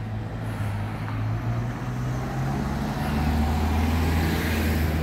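Road vehicle engine running close by: a low steady hum that drops in pitch about three seconds in and grows louder toward the end.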